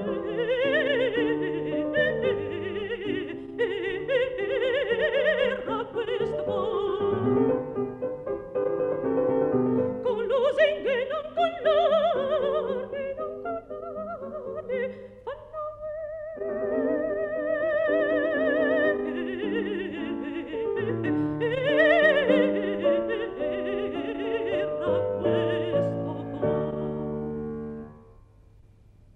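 Mezzo-soprano singing an Italian Baroque aria with strong vibrato over grand piano accompaniment. One long note is held a little past halfway, and the music pauses shortly before the end.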